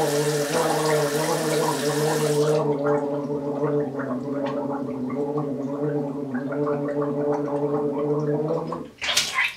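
A person gargling with the head tipped back, a steady voiced gurgle held for about nine seconds before stopping, followed by a short rising sound near the end. Music fades out under the gargle about two and a half seconds in.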